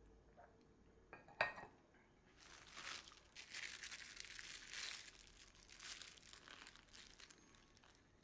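A ceramic coffee cup set down on its saucer with one sharp clink about a second and a half in, then the paper wrapped around a sandwich crinkling for several seconds as hands peel it back.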